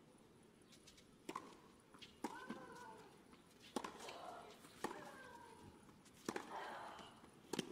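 Tennis rally: six racket strikes on the ball, about one every second and a half, several of them followed by a player's short grunt.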